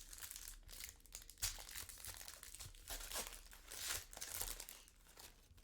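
A trading card pack wrapper being torn open and crinkled, an irregular run of crackling rustles.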